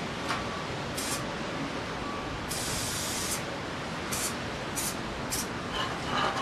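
Montana 94 spray-paint can fitted with a super fat cap, sprayed in hissing bursts: a short one about a second in, a longer one of nearly a second in the middle, then three quick short ones near the end.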